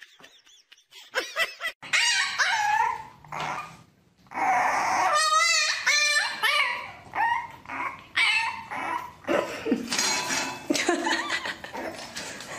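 Dog yipping and whining in a string of short calls that bend up and down in pitch, with one longer, wavering whine about five seconds in.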